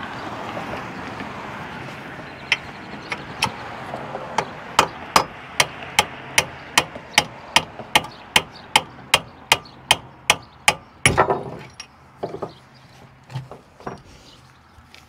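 Hand hammer striking steel at a tow truck's boom cylinder mount, driving at a pin that is stuck: a steady run of sharp blows about two and a half a second, then a heavier cluster and a few scattered knocks near the end. A steady rushing noise fades out over the first couple of seconds.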